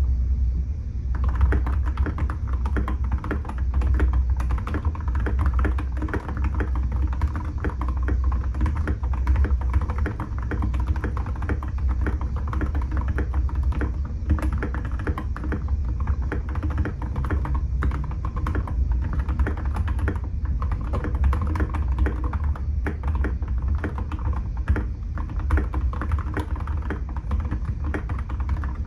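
Continuous typing on a GamaKay TK68 mechanical keyboard with lubed and filmed Gateron Yellow linear switches, a steady stream of keystrokes that starts about a second in. Cicadas sing faintly in the background over a steady low rumble.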